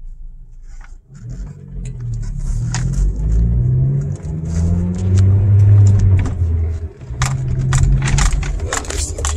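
Ford Focus SVT's 2.0-litre four-cylinder engine heard from inside the cabin, pulling away and accelerating, its pitch climbing. The level dips briefly about seven seconds in at a shift of the manual gearbox, then climbs again. Light clicks and jingles from the cabin come and go throughout.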